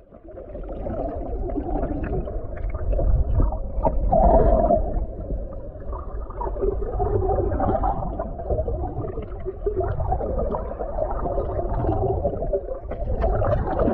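Muffled underwater rushing and gurgling of lake water flowing past a sailboat's hull and keel, with a low, uneven rumble.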